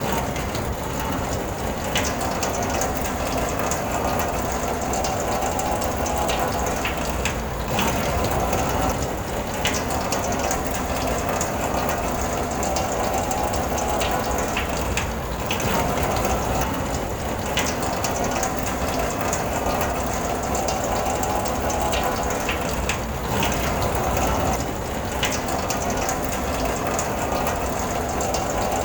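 Steady rain on a car heard from inside the cabin: a constant wash of noise with scattered sharp taps of drops hitting the body and glass.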